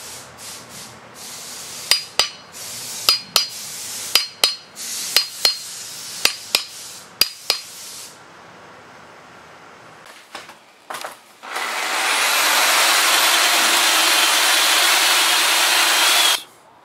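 An electric drill spins up with a rising whine and bores steadily into a steel post bracket for about four seconds, then stops suddenly near the end. Earlier, a run of about a dozen sharp knocks with a metallic ring.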